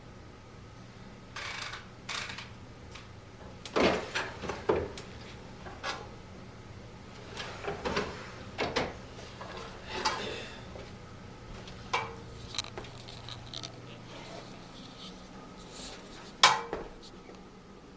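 Olympia SM-9 manual typewriter being handled and its controls worked: irregular mechanical clicks and clunks, a few with a short metallic ring, the sharpest about 16 seconds in.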